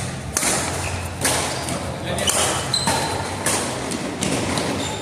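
Play in a doubles match on an indoor court: sharp hits and thuds about once a second, with a few brief squeaks and some voices in an echoing hall.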